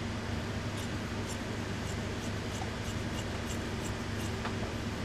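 Tailor's shears snipping along the seam of wool suit trousers, faint short crisp cuts about twice a second, over a steady low hum of room noise.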